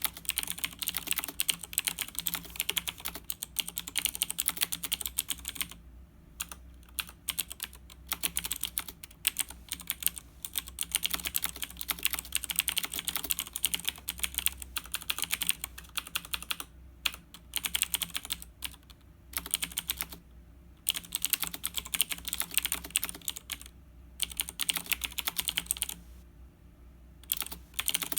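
Fast continuous typing on a Razer BlackWidow 2013 mechanical keyboard: rapid key clicks, broken by a few short pauses.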